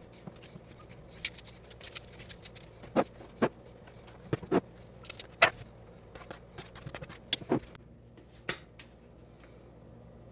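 Irregular clicks, taps and light knocks of kitchen handling as a salad is put together: ingredients, containers and utensils being picked up, set down and moved. They thin out over the last couple of seconds.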